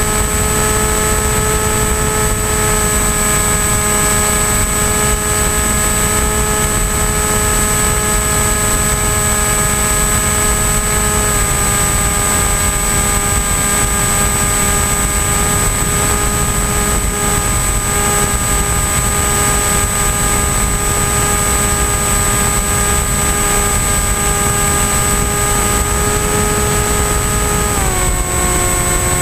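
The electric motor and pusher propeller of an AXN Floater-Jet RC plane whining at a steady pitch in flight, under heavy wind rush on the plane's onboard camera. The pitch steps down slightly about a third of the way in and drops further near the end as the motor slows.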